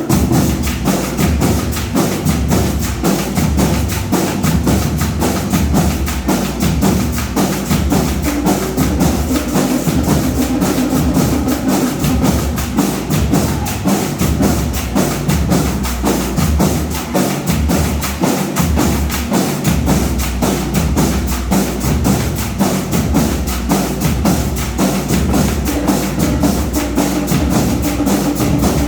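Marching band music: drums and other percussion playing a fast, steady beat without a break.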